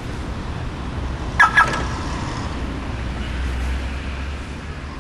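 A car's remote-lock chirp: two quick beeps about a second and a half in, over a steady low rumble.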